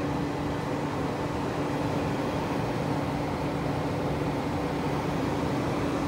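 Flagro diesel-fired forced-air heater running: a steady rush of its blower and burner with a constant hum.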